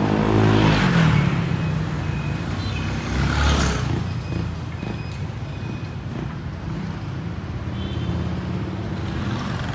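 Honda Vario scooter with an aftermarket 4Road-style exhaust ridden past, its engine and exhaust note loudest about a second in. Another pass-by follows around three and a half seconds, then steady running of small motorbikes in street traffic.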